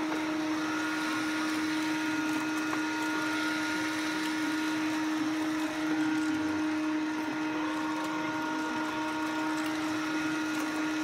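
Samsung POWERbot robot vacuum running, its suction motor giving a constant hum at one steady pitch over a wide rush of air.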